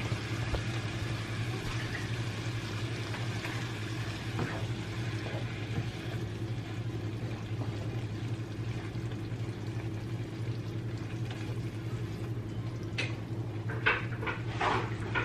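Ground beef and tomato sauce simmering in a frying pan, a steady noise over a low steady hum. Near the end a wooden spoon stirs and knocks against the pan several times.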